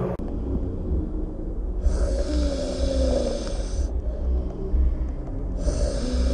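A man snoring open-mouthed in deep sleep: two long snores of about two seconds each, the first about two seconds in and the next near the end, over a steady low rumble.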